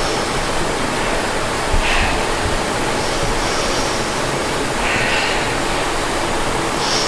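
A steady, loud rushing noise like static or falling water, with brief brighter hissing swells every second or two.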